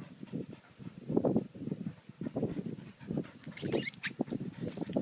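French bulldogs making short, irregular grunting and breathing sounds, several a second. A brief, higher-pitched rustle or scrape comes about three and a half seconds in.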